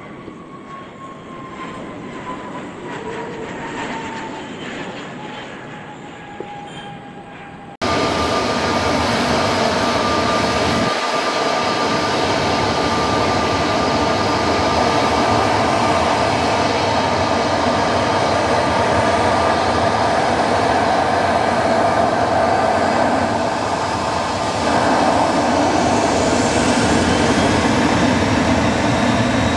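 A jet aircraft passing with a falling whine. Then, after an abrupt cut about eight seconds in, the loud, steady noise of a Boeing 737-800's CFM56 jet engines close by, with a high engine whine over it, growing a little louder near the end.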